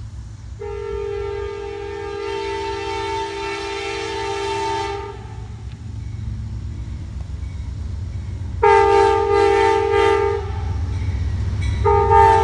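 Amtrak GE Genesis passenger locomotive's air horn sounding a chord of several notes as the train approaches: one long blast of about four seconds, a shorter blast after a pause, then a third starting near the end. Under it, the low rumble of the oncoming train grows louder.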